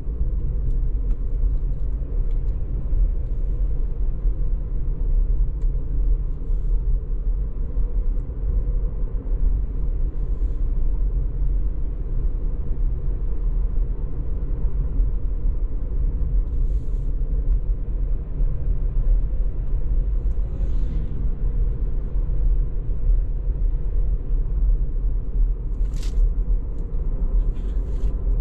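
Steady low road and tyre rumble inside a Tesla Model 3's cabin at about 60 km/h, with no engine note from the electric drivetrain. A faint click comes near the end.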